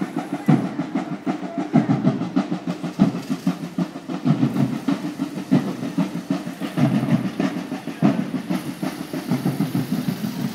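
Parade drums beating, a quick run of low thumps that keeps going.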